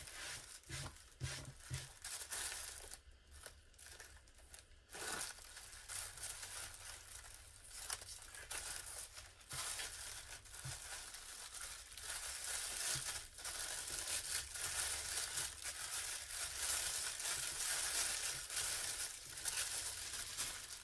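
Plastic wrapping and tissue paper crinkling and rustling as a package is untied and pulled open, sparse at first and getting busier and louder past the halfway point.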